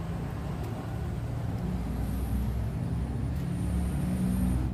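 A steady, low outdoor rumble that grows slightly louder, with a faint high thin whine in the second half.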